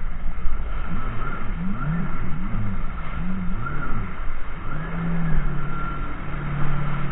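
Jet ski engine revved up and down several times in quick succession, then held at a steady pitch, over a constant rush of water and wind noise.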